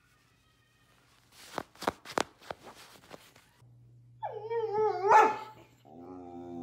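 Yellow Labrador retriever vocalising for attention: a few sharp clicks, then about four seconds in a loud, rising, wavering whine-howl, followed near the end by a lower, steadier moan.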